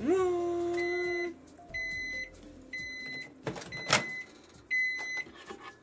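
Microwave oven's end-of-cycle alert: five short, high, steady beeps about a second apart, signalling the cooking time has run out. A couple of sharp knocks come around the fourth beep.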